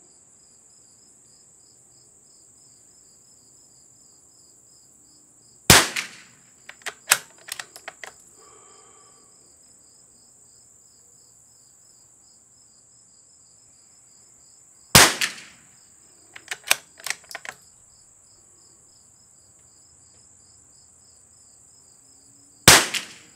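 Three shots from a stock CZ 452 Varmint bolt-action .22 LR rifle, about eight to nine seconds apart, the first two each followed by a quick run of clicks as the bolt is worked to eject and chamber the next round. Crickets chirp steadily throughout.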